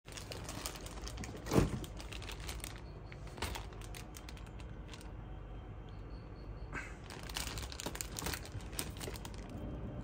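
Clear plastic zip bag crinkling and crackling as it is handled, with scattered small clicks. There is one louder thump about one and a half seconds in.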